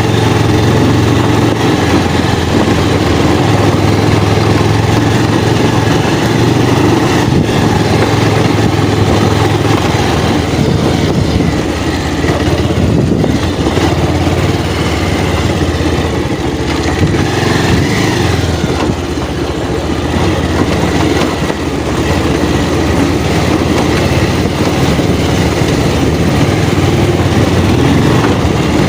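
Motorcycle engine running steadily while riding, with heavy wind and road noise over it.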